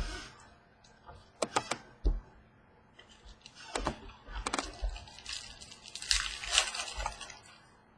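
Trading cards being handled on a wooden table: scattered clicks and soft taps as cards are slid and set down, with a stretch of rustling about six seconds in.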